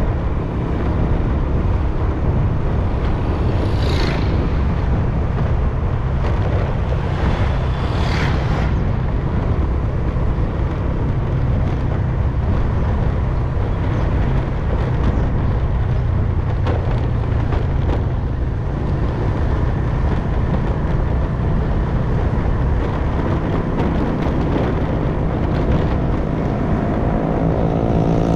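Motorcycle engine running steadily at riding speed under a low rumble of wind and road noise, heard from the bike itself. Near the end the engine note rises as it speeds up.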